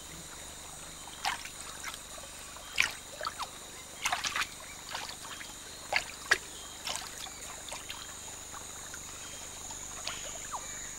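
Light splashes and trickles of shallow water as a sunbittern wades and steps through it, a dozen or so short ones scattered mostly through the first seven seconds. A steady high insect drone runs underneath.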